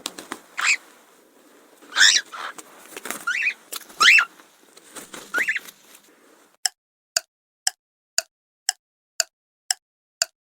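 Canary chirping in short phrases that sweep up and down in pitch. About two-thirds of the way in it gives way to a steady timer ticking about twice a second, eight ticks in all.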